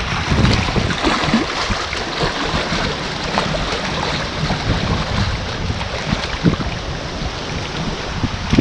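Strong wind buffeting the microphone as a low rumble, with waves splashing against the rocky shore.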